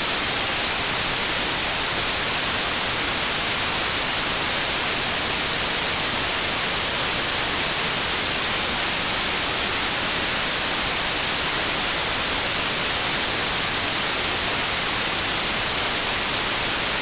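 Electronically generated white noise: a steady, unchanging hiss, strongest in the highs.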